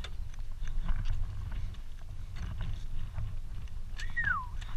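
Honda CRF250R dirt bike rolling slowly over loose rocky gravel: irregular crunching and clatter of stones under the tyres over a low rumble. About four seconds in comes a short clear tone that falls in pitch.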